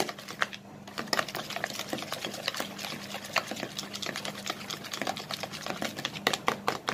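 Wire whisk beating eggs and sugar in a plastic mixing bowl: rapid, rhythmic clicking and tapping of the wires against the bowl, with a brief lull about half a second in and sharper, more regular strokes near the end.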